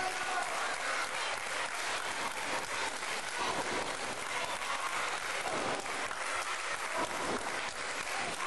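Small audience applauding steadily, with scattered voices in the crowd.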